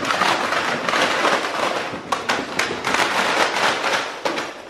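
Dozens of packaged fishing lures pouring out of a cardboard box and clattering onto a concrete floor and a person lying on it: a dense rattle of many small hits that dies away near the end.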